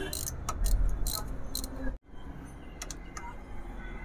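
Metal clicks and clinks of a ratchet wrench turning the cylinder-head nuts on a Honda Livo motorcycle engine, in separate short strokes. The sound drops out briefly about halfway through.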